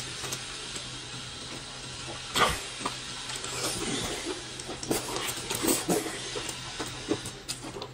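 Noodles being slurped into the mouth and chewed, with wet smacking eating noises. A sharp slurp comes about two and a half seconds in, then a longer drawn-in slurp and a run of wet smacks.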